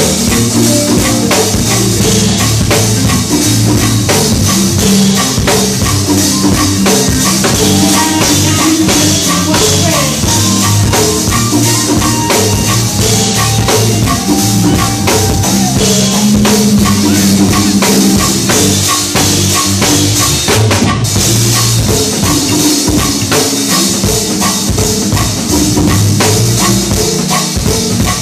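Live band playing: a drum kit keeping a steady beat under electric keyboards and bass guitar.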